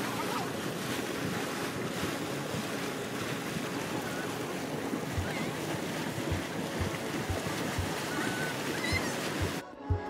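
Steady rushing hiss from a steaming hot-spring mud pot, with wind on the microphone. Soft low thumps come about twice a second through the second half.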